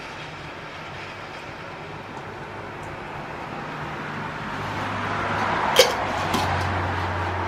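A steady rushing noise that slowly swells, with a low hum joining about halfway, and one sharp clink about six seconds in as a glass mason jar is set down on a wooden bench.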